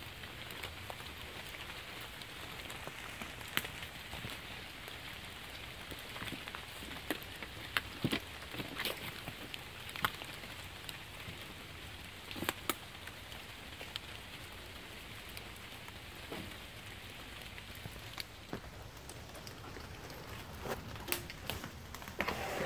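Steady rain falling, with scattered sharp drips and taps through it.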